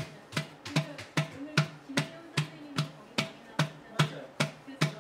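Wooden paddle beating the coiled clay wall of a large onggi jar while the other hand braces the wall from inside, in a steady rhythm of dull slaps about two and a half a second. This is the paddle-and-anvil beating that compacts and thins the coils.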